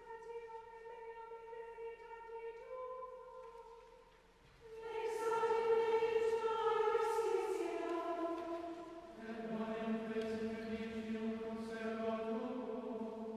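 Liturgical chant sung by a community choir. A single steady held note opens it, then a group of higher voices enters louder about five seconds in, and lower voices join the chant about nine seconds in.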